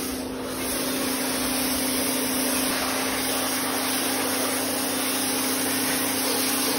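Kärcher K2 electric pressure washer running steadily: a constant hum from its motor and pump under the hiss of the high-pressure water jet as it strips moss off a stone wall.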